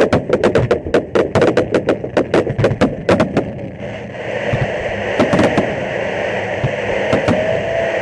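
Fireworks display: a rapid volley of bursting shells, about four or five sharp bangs a second, for the first three and a half seconds. It gives way to a steady dense crackle, with a few louder bangs in the middle.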